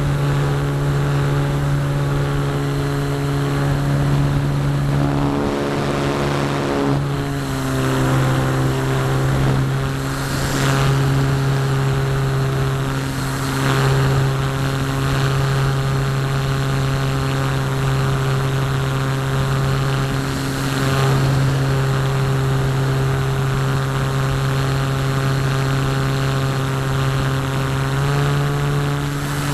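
Brushless electric motor (Firepower 10 sport motor) and propeller of a Parkzone Radian RC glider running in flight, heard from the onboard camera as a steady, even drone. The pitch drops about seven seconds in and rises slightly near the end as the throttle changes, with a few gusts of wind noise across it.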